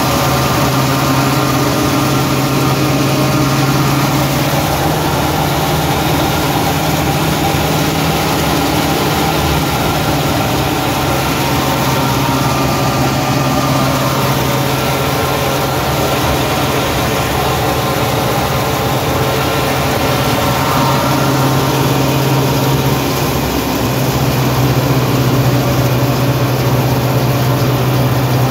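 Patos threshing machine running steadily under load, threshing grain and blowing out straw, with the engine that drives it: a loud, constant mechanical drone.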